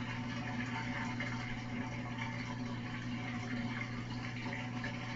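Frigidaire stacked washer's drain pump running in the diagnostic test, a steady hum with the sound of water being pumped out of the tub.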